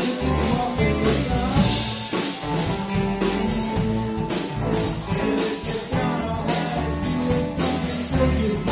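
Live electric blues band playing an instrumental passage: blues harmonica over electric guitars, upright bass and a drum kit with steady cymbal ticks.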